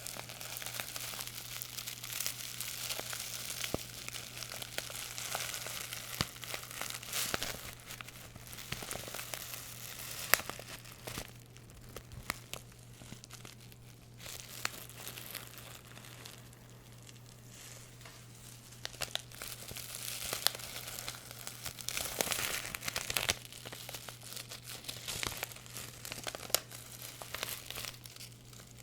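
Close-miked crinkling and rustling of handled material, coming in waves, with a few sharp clicks along the way. It is louder at the start and again after about 20 seconds. A faint steady low hum runs beneath.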